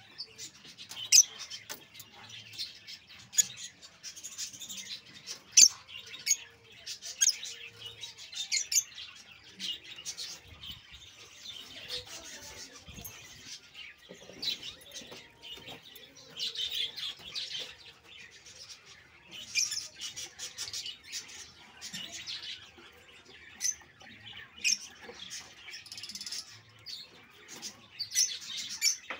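Caged lovebirds chirping: a busy chatter of short, high calls, with some sharp, loud chirps standing out now and then.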